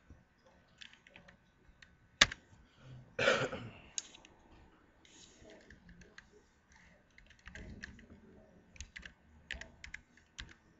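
Computer keyboard typing in short runs of key clicks, with one sharp loud click about two seconds in and a short breathy burst of noise just after it.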